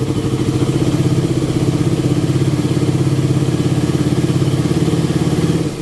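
Suzuki Raider 150 carburettor engine running, with the throttle opened from about half a second in and held at a slightly higher, fuller note, then dropping back to idle near the end. The freshly unchoked, warmed-up engine takes the throttle without stalling, a sign it is no longer flooded.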